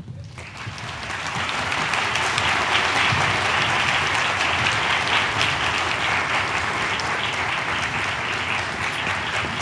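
Theatre audience applauding, swelling up over the first couple of seconds after the orchestral music stops, then holding steady.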